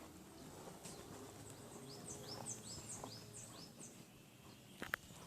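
A small bird singing a quick series of about ten short, high, rising notes over faint outdoor background noise, with a sharp click near the end.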